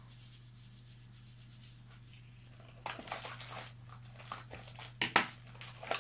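Makeup items being handled and put away: rustling and light clattering that starts about three seconds in, with one sharp click a little after five seconds.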